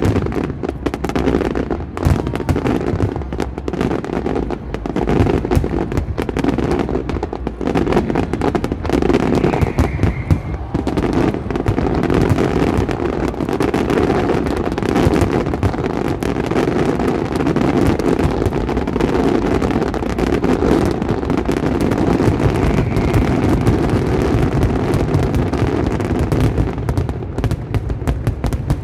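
Fireworks display going off in a dense, continuous barrage: many bursts and bangs overlapping with crackle, with no break.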